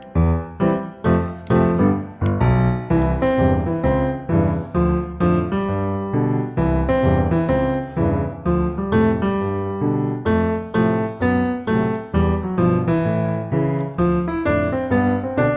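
Background piano music: a steady run of piano notes, about two to three a second.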